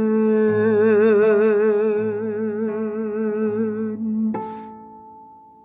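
A man's voice holds the final note of a Turkish art song in makam Sultaniyegâh with a wide vibrato, over oud, with low oud notes plucked beneath it about every second and a half. About four seconds in the voice stops and a last oud stroke rings out and fades away.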